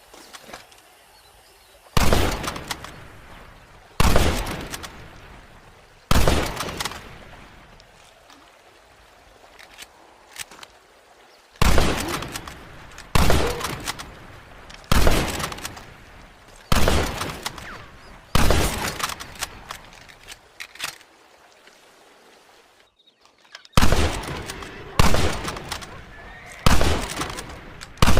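Carcano bolt-action rifle firing about a dozen single shots, each a sharp crack with a long echoing tail. Three shots come about two seconds apart, then after a pause a steady run of shots a second and a half to two seconds apart, with one more short pause before the last few.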